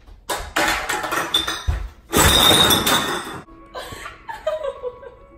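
Clattering and clinking of glass bottles and cans as a person tumbles onto a kitchen floor, followed by loud laughter.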